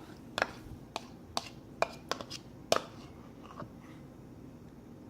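A spoon clicking and tapping against a bowl and container while Greek yogurt is spooned out: about eight short, sharp, irregular taps.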